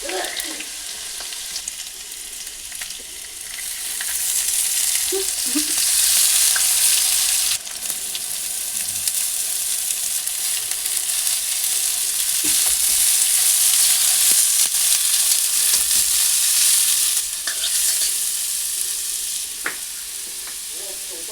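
Food frying in hot oil in a pan, a steady sizzle with occasional stirring; the sizzle drops suddenly about seven and a half seconds in, then builds again.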